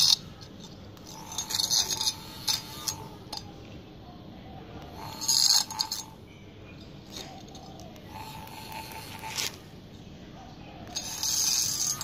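Small battery-powered DC motor spinning the blade of a homemade mini grass cutter, its faint whine coming and going as the blade strikes and scrapes through weed stems and gravel in repeated short bursts of clatter.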